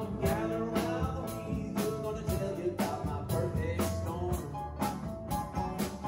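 A small live band playing a steady-beat country-rock song on acoustic guitars, electric bass, keyboard and drum kit.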